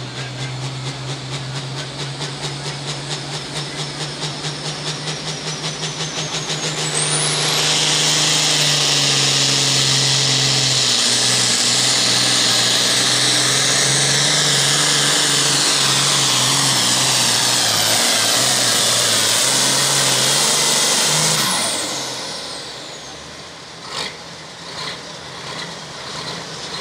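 Turbocharged 640-cubic-inch diesel of a John Deere pro farm pulling tractor under full throttle during a pull. The engine note pulses as it builds, with a high turbo whine rising for the first several seconds, then holds loud and steady with a piercing whine while pulling; near the end the throttle is cut, the whine falls away and the engine drops back to a much quieter idle.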